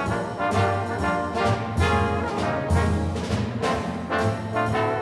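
Background music with brass instruments playing melodic notes over a bass line.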